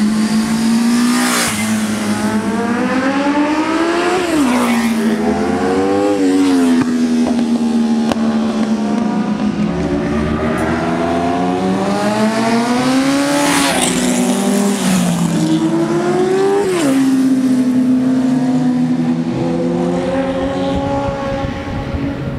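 Classic racing motorcycles going by one after another at racing speed, engines revving high. The engine pitch climbs and then drops sharply as each one passes, with about four loud passes.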